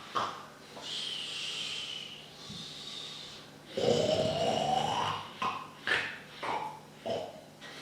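A man acting out exaggerated cartoon snoring: two long drawn breaths with a high whistling tone, the second with a rising pitch, followed by a few short snorts.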